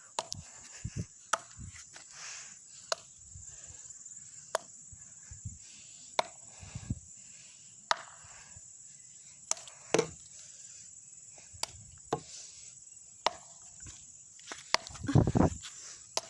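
A brick being bashed repeatedly against something hard: sharp single knocks, about one every second and a half, with a louder, longer noise near the end.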